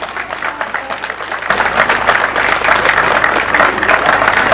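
Crowd applauding, the clapping swelling louder about a second and a half in.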